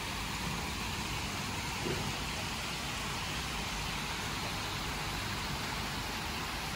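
Water running down a stepped cascade fountain into a shallow pool: a steady splashing hiss.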